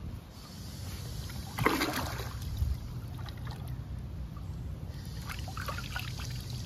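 Pool water splashing and trickling as a hand dips and scoops at the pool's edge: one louder splash about two seconds in, then small splashes and drips near the end.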